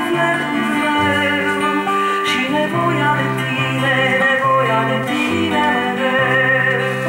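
A woman singing a song, accompanying herself on a steel-string acoustic guitar, with long held notes over the guitar chords.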